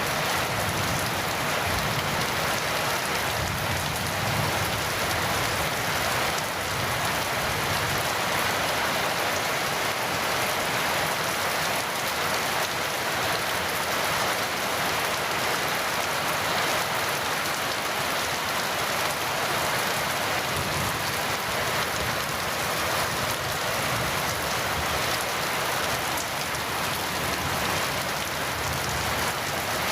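Heavy rain falling steadily, a dense even hiss of drops with no letup.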